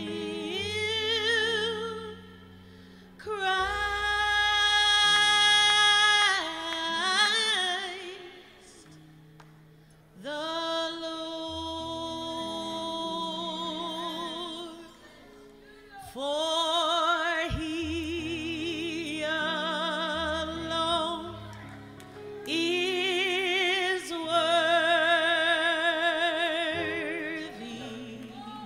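A woman sings a gospel solo into a microphone, holding long notes with a wide vibrato over sustained accompaniment chords, and pausing briefly twice.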